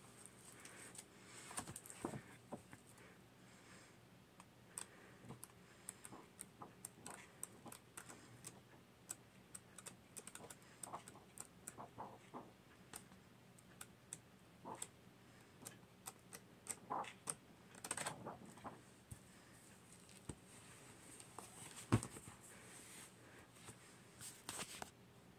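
Faint handling of a large book as its pages are leafed through: irregular soft paper rustles and clicks, with one sharper knock near the end.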